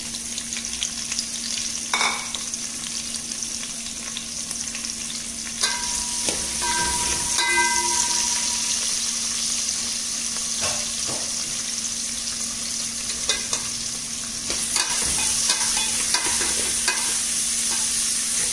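Sliced onions sizzling in hot oil with whole spices in a steel pot, with a spoon knocking and scraping against the pot now and then. A brief ringing tone sounds about six seconds in.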